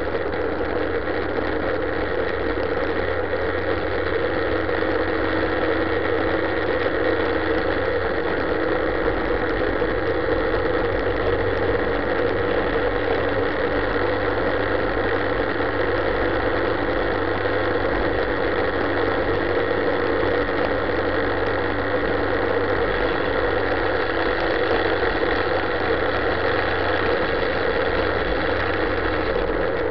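Motorcycle engine running steadily at about 4,500 to 5,000 rpm while cruising, mixed with wind and road noise.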